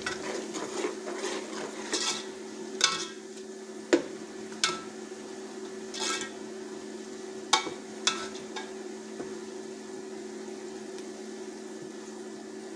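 Sliced onions sizzling in hot oil in an aluminium pot, browned, while a metal ladle stirs them. The ladle scrapes and knocks against the pot several times in the first eight seconds, over a steady low hum.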